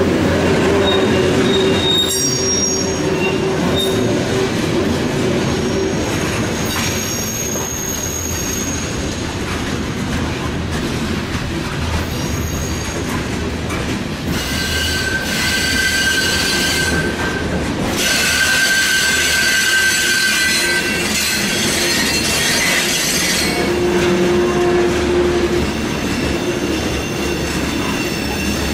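Norfolk Southern freight train's open hopper and gondola cars rolling past, with a steady rumble of steel wheels on rail. Wheel squeal comes and goes on top of it and is strongest for several seconds from about halfway through.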